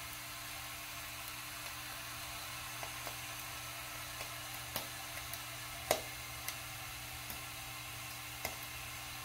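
Steady sizzling with scattered small ticks, the loudest about six seconds in, from a Wilesco D20 model steam engine's boiler heating over burning dry-fuel tablets as steam pressure builds.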